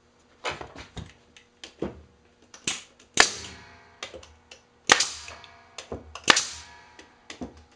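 Pneumatic brad nailer driving brads into plywood: three loud, sharp shots about a second and a half apart, with lighter clicks and knocks between them.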